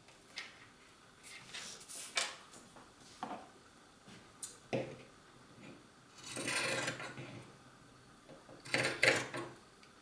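Fabric scissors cutting through a T-shirt sleeve: a string of short snips and scrapes, with a longer cut about six seconds in and a quick cluster near the end.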